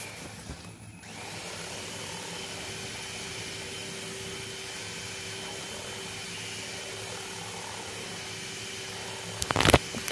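Electric hand mixer running steadily, its twin beaters whisking eggs and sugar in a bowl until frothy. A brief loud clatter comes near the end.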